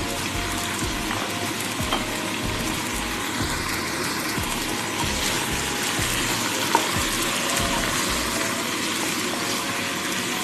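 Chicken pieces and baby carrots sizzling steadily in a pot as they are stirred, with a few light clicks of the utensil against the pot.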